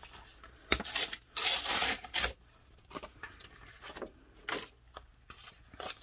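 Brown kraft craft paper being torn by hand: a sharp snap under a second in, then a rough rip lasting most of a second, followed by quieter rustling as the paper is handled.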